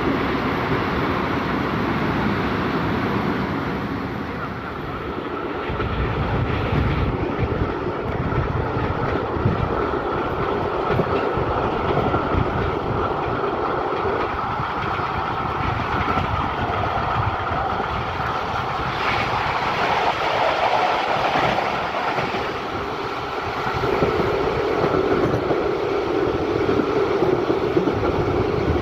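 Historic Centoporte passenger carriage in motion, heard from on board: a steady rumble of wheels on rail with irregular clicks and knocks from the track.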